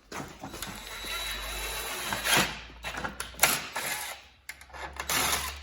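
Power drill running under load for about two seconds, driving a self-tapping screw into a fiberglass grill, followed by several sharp clicks and knocks of tools and parts being handled.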